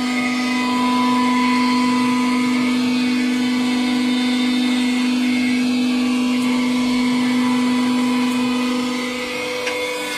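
Hydraulic press's electric pump motor running with a steady hum, easing slightly near the end.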